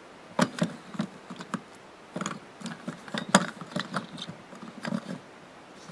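Small plastic toy monster truck being handled: irregular clicks and light knocks of its plastic body and rubber tyres, starting about half a second in.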